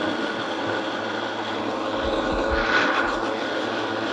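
Countertop blender running at a steady speed, whirring through a thin liquid basil vinaigrette of oil and vinegar.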